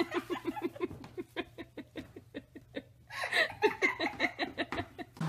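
A person laughing hard in a quick run of short ha-ha-ha sounds, about six a second. The laughter grows louder again about three seconds in.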